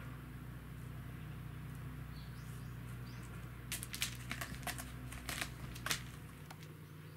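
A Norwegian Forest Cat clawing at a sisal-rope scratching post as it paws up at a hanging toy mouse: a quick run of about eight sharp, scratchy clicks about halfway through, over a steady low hum.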